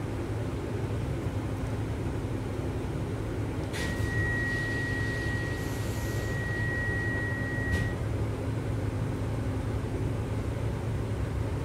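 EG2Tv Ivolga electric train running, a steady low rumble heard from inside the carriage. A few seconds in, a single steady high-pitched tone sounds for about four seconds, starting and stopping with a click.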